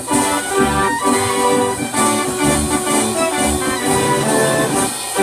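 Wurlitzer Style 165 band organ playing a perforated paper roll: pipe notes carrying a lively tune over drum beats about twice a second. The music stops on a final accent at the very end.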